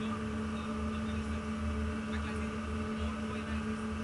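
Steady hum of a survey ship's machinery: a low rumble with a constant droning tone.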